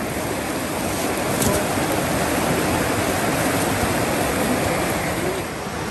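Steady rushing of fast-flowing stream water.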